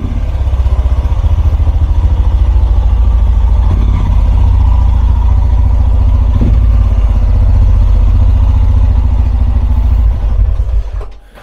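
Royal Enfield Himalayan 410's single-cylinder engine running loud through a MASS slip-on exhaust with the dB killer removed, a deep, rapid thumping exhaust beat. The sound falls away shortly before the end.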